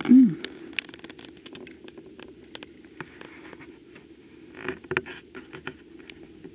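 Handling noise of setting up: scattered light clicks, taps and rustles, with a short louder cluster of clicks and a scrape about four and a half to five seconds in, over a steady low room hum.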